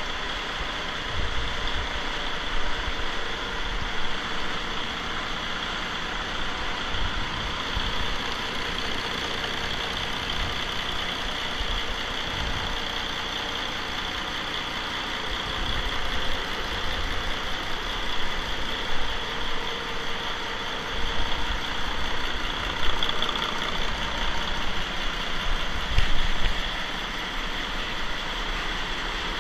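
Mercedes-Benz OM-460LA inline-six turbo diesel idling steadily on a test stand, with occasional louder low bumps.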